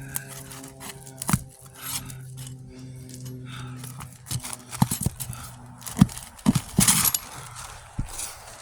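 Brittle asphalt roof shingles and tar paper being pried and scraped off a roof: irregular sharp cracks and knocks, with a louder tearing scrape about seven seconds in. A steady low hum runs under the first half.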